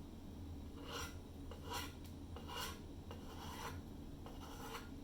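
About five short scraping strokes, roughly a second apart.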